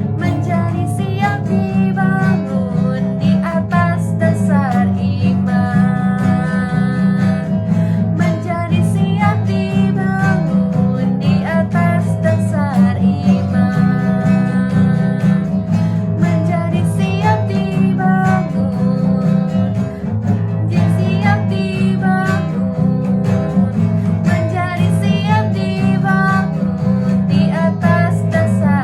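Music: a worship song carried by acoustic guitar, playing steadily.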